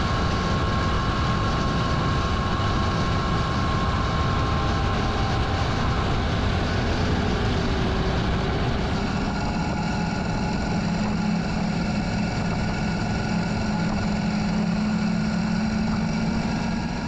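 Motorcycle engine running and wind rushing over an onboard camera while riding along a road. About nine seconds in the sound changes to a steadier, deeper engine hum.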